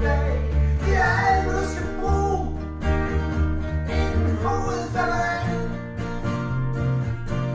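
A small acoustic band playing live: strummed acoustic guitars over a deep bass part, with a man singing. He sings two phrases, one starting about a second in and another around four seconds in.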